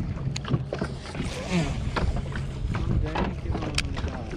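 Small plastic one-person boat on the water: scattered knocks and clicks against the hull over a rumbling, water-and-wind background, with faint voices.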